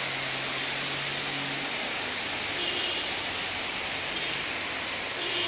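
Steady rain falling, an even hiss with no let-up. A faint low hum sits under it for the first second and a half.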